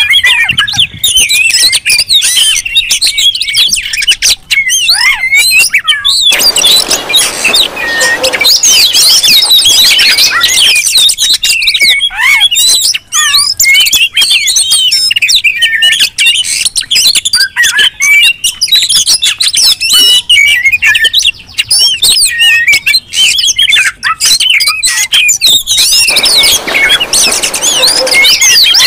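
Several Oriental magpie-robins singing and calling at once in a dense, overlapping, non-stop chorus of quick whistles and chirps. Harsher, hissy stretches come in about a quarter of the way through and again near the end. It is agitated, territorial song of the kind used to provoke other magpie-robins.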